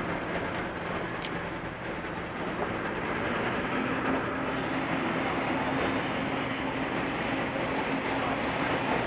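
Street traffic noise at an intersection, dominated by a large vehicle idling close alongside: a steady rumble with a low hum that steps up in pitch a few seconds in.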